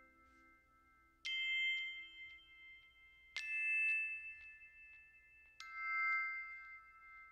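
Three bell-like chime notes in background music, struck about two seconds apart, each ringing on and slowly fading.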